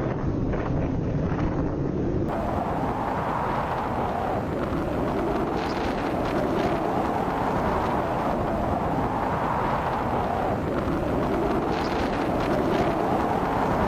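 Strong wind buffeting the microphone in a blizzard: a steady rushing noise with slow swells, its character changing about two seconds in.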